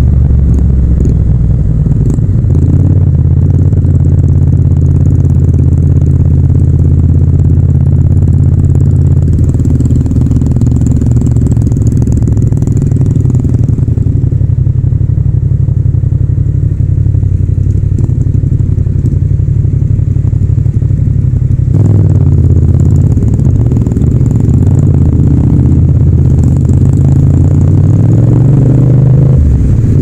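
Yamaha MT-07 (FZ-07) 689 cc parallel-twin engine running at low, steady revs in slow traffic, heard from the rider's seat. About twenty seconds in the revs drop and wander, and near the end they climb again.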